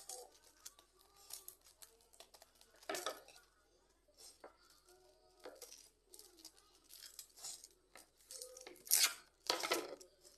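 Paper and packing tape being handled by hand: rustling and light clicks, with a few short scratchy bursts of tape and paper, the loudest twice near the end.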